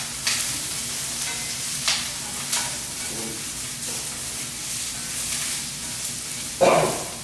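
Shrimp shells sizzling in hot olive oil in a frying pan, stirred with a spoon that scrapes the pan now and then. A brief louder sound comes near the end.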